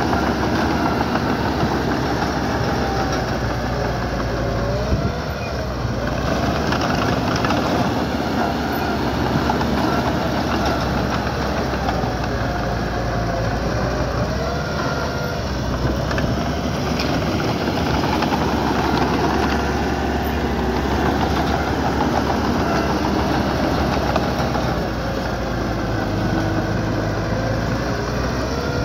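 A heavy-equipment diesel engine running steadily, with a few brief wavering squeals now and then.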